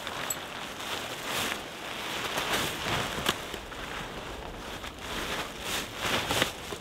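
Nylon fabric of a Naturehike one-person instant tent and a plastic groundsheet rustling and crinkling as the tent is pulled out and shaken open, in irregular swishes with several louder bursts.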